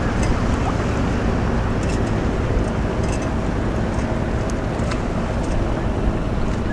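Steady drone of a passing motorboat's engine over water and wind noise, its hum growing a little clearer in the second half.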